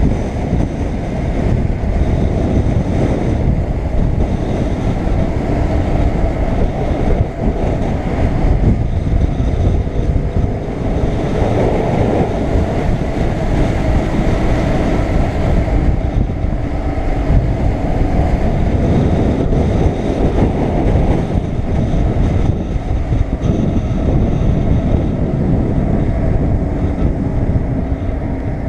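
BMW R850R motorcycle's boxer-twin engine running at cruising speed, under steady wind rushing over the bike-mounted camera's microphone.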